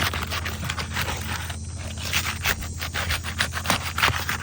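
Pry bar scraping under asphalt roof shingles and breaking their adhesive seal strips: a dense run of irregular short scrapes and crackles, over a steady low hum.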